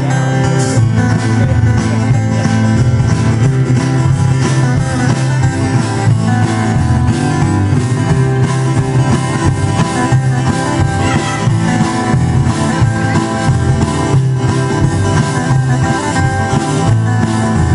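A live country band playing: strummed acoustic guitars over a steady upright bass line and drum kit.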